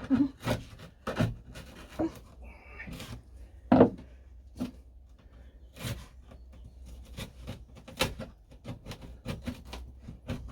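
Irregular knocks and scrapes of hand work on wooden boat fittings, several a second at times, with a sharper knock about four seconds in.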